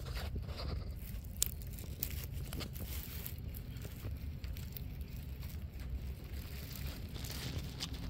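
Low, steady rumbling outdoor background noise with scattered small crackles and clicks, and one sharper click about a second and a half in.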